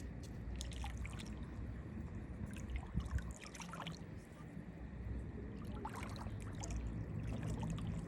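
Small splashes and trickling of water over a steady low rumble.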